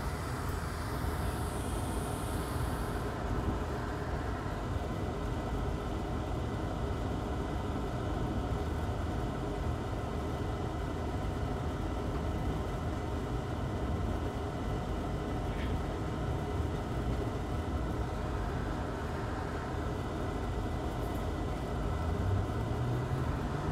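Hot air rework station blowing a steady rush of air while it desolders a small surface-mount chip from a laptop logic board.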